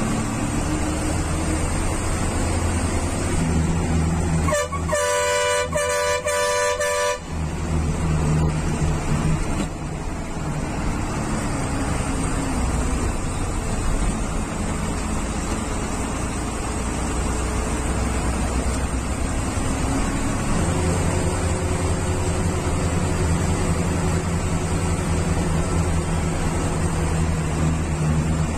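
Bus engine running steadily as the bus climbs a winding hill road, with the horn sounding in three quick blasts about five seconds in.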